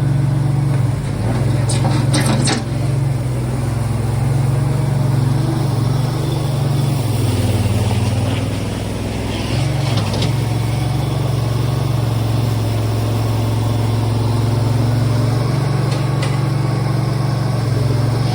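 Engine of heavy equipment running steadily while a machine is moved. Its note drops for a couple of seconds about halfway through, and there are a few short metallic clanks.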